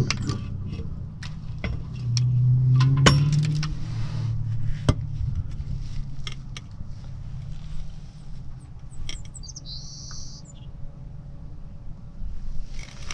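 Scattered light clicks and knocks from handling tools and parts under a car, over a low vehicle rumble that swells about two to four seconds in. A short high chirp sounds near ten seconds.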